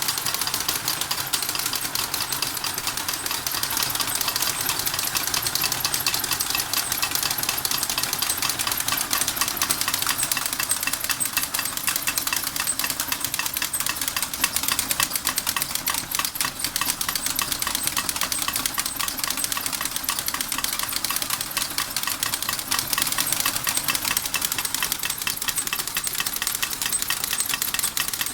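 D21 model steam engine running steadily with a fast, even clatter of rattling and knocking parts.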